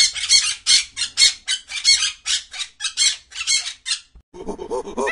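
Macaws squawking: a run of short, harsh squawks, about four a second. About four seconds in they stop, and a lower, quick-pulsing animal call takes over.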